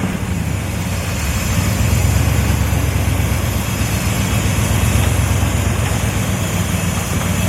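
Truck engine running steadily, warmed up, while its ignition timing is checked with a timing light. It swells a little louder about two seconds in. The distributor's timing advance is not coming in: its weights and springs are sticky.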